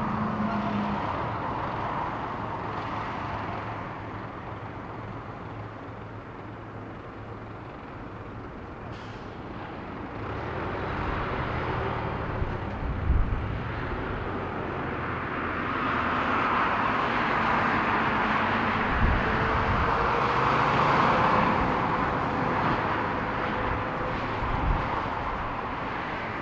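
Airbus A330-243 airliner on final approach, its Rolls-Royce Trent 700 jet engines heard as a steady hissing engine noise that grows louder from about ten seconds in as it nears. A few brief low thumps come through along the way.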